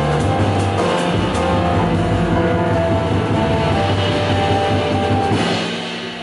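A jazz piano trio playing live: piano over bass and drum kit, with cymbal strokes. About five seconds in a cymbal crash comes, and the music falls away to a quieter level.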